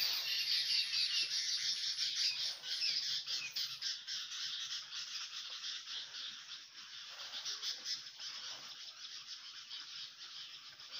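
A dense, steady, high-pitched chorus of birds chirping and calling in a fruiting banyan tree, with a few separate chirps standing out. It eases off a little in the second half.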